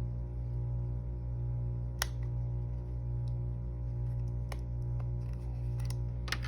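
Light clicks and taps of plastic support pins being handled and pressed into a wired wax foundation in a wooden beehive frame, the sharpest click about two seconds in and a few more near the end, over a steady low hum.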